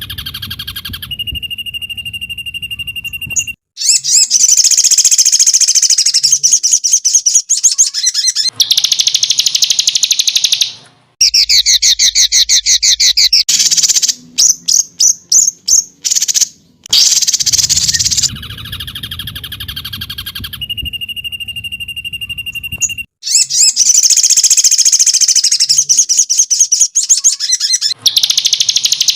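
Songbird masteran (bird-training) recording: loud, rapid high trills and chattering bursts with a short steady whistle, in an edited sequence that repeats about every 17 seconds.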